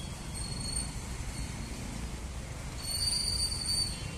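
Steady low rumble of street traffic, with crickets trilling high and evenly for about a second near the end.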